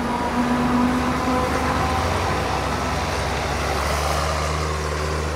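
Forage harvester and tractor engines running steadily while chopping maize, a deep continuous drone whose tone shifts about halfway through.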